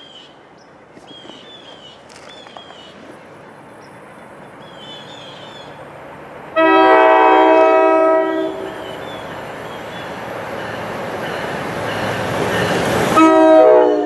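NJ Transit ALP-45DP locomotive sounding its horn on approach: one long blast about six and a half seconds in, lasting about two seconds. The train's rumble grows steadily louder as it nears, and a second horn blast comes as the locomotive passes near the end.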